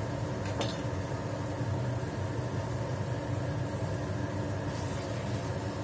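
Steady low mechanical hum with several steady tones, and one short clack about half a second in as a spatula works tofu in a frying pan.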